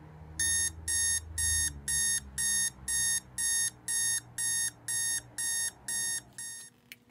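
Digital alarm clock going off: high-pitched beeps repeating about twice a second, a dozen or so in a row, stopping shortly before the end.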